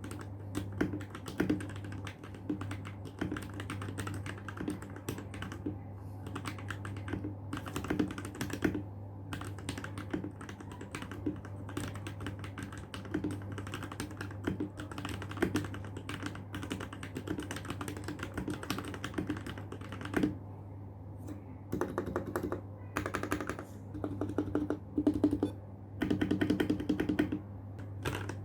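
Typing on an RK61 mechanical keyboard with lubed switches: an irregular stream of key clacks, with quicker, louder runs of keystrokes in the last third. A steady low hum lies underneath.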